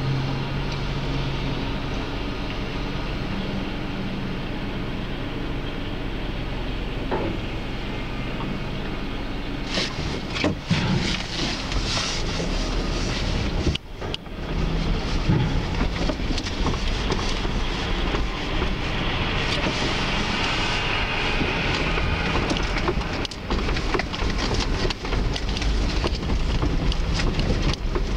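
A heavy vehicle's engine running steadily, joined about ten seconds in by a busy clattering and rattling that runs on to the end.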